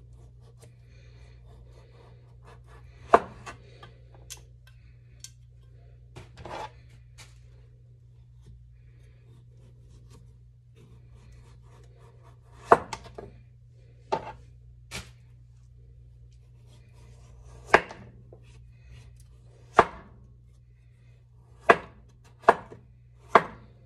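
Kitchen knife cutting a papaya on a wooden cutting board: about a dozen sharp, irregularly spaced knocks of the blade striking the board as the skin is pared off and the flesh sliced, clustered more closely near the end.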